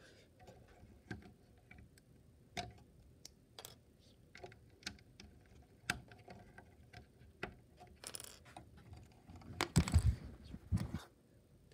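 Faint, irregular clicks of LEGO pieces being handled on a brick-built ship model. Near the end comes a louder rustle and a few knocks as a hand works over the model.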